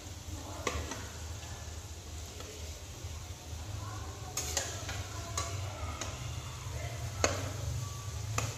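Gujiya deep-frying in hot oil in a steel kadhai, a steady sizzle, while a metal spatula turning them clinks and scrapes against the pan about five times.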